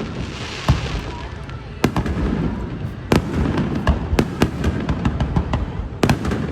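Fireworks display: sharp bangs of firework bursts at irregular intervals, about one every second, with smaller crackles between.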